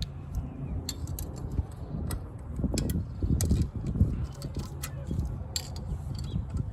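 Metal hand tools clicking and clinking irregularly against metal parts, over a steady low rumble.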